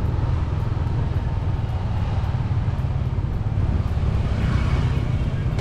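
A steady low rumble with no distinct events, like traffic or wind noise on an outdoor recording.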